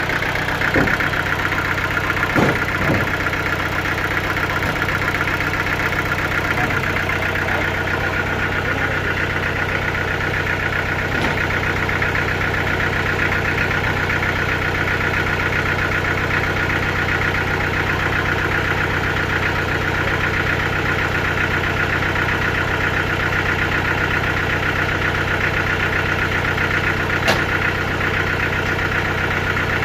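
Sawmill engine running steadily at an even pitch, with a few short knocks in the first few seconds and a sharp click near the end.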